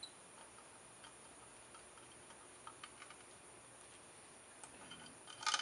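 Small, scattered metallic clicks as a screwdriver and brass jets are handled on a Weber DCOE carburettor body, with a quick cluster of sharper clicks near the end.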